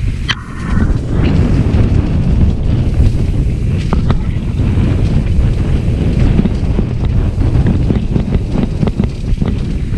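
Heavy wind buffeting the microphone of a camera on a moving dirt bike, a loud, uneven low rumble, with the bike's engine running underneath. A short click comes about a third of a second in.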